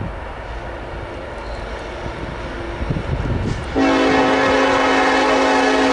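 Diesel freight locomotive's air horn sounding one loud, steady multi-note chord, starting suddenly about four seconds in as the train approaches. Before it, a low rumble of wind and the distant train.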